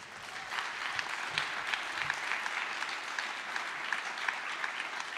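Audience applause: many hands clapping steadily, easing off slightly near the end.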